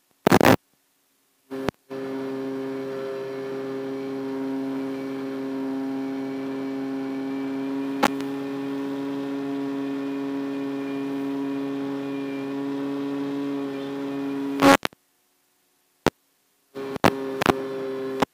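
Brushless motor and propeller of an FPV flying wing running at a steady part throttle: one even drone with evenly spaced overtones. The sound drops out to silence a few times, with short loud crackles near the start, about three-quarters of the way in and twice near the end.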